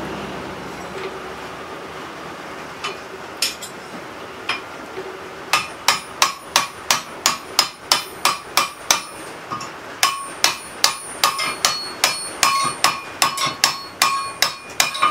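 Hand hammer driving a cold S7 steel drift through the hot punched eye of a railroad-spike tomahawk head on the anvil, spreading the eye. A few separate blows at first, then steady rapid blows about three a second with a brief pause partway, each with a metallic ring.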